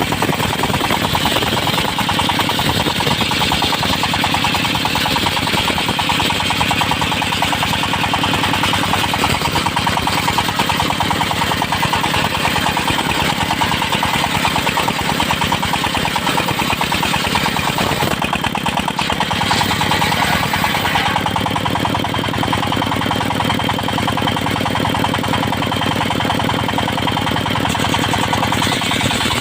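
Engine-driven sawmill circular saw cutting teak, the engine running steadily with a rapid pulsing beat under the hiss of the blade in the wood. About twenty seconds in the high cutting noise falls away and the engine runs on.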